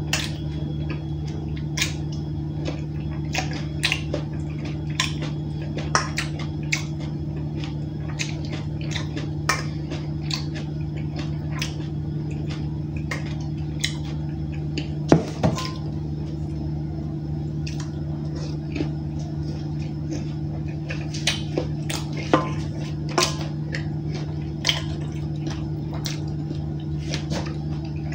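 Metal spoon stirring and scraping raw fish salad in a stainless steel mixing bowl: irregular clinks of spoon on bowl with wet squishing, one louder clink about halfway through. A steady low hum runs underneath.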